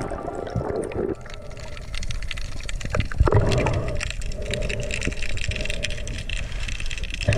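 Underwater water noise picked up by a diver's camera: rushing and gurgling with scattered clicks, and a low thump about three seconds in.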